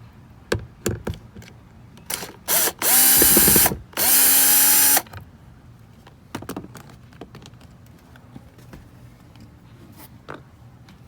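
Cordless power screwdriver run twice, each a short steady motor whine that winds up and winds down, backing out a door-panel screw, with light clicks of the tool and screw being handled before and after.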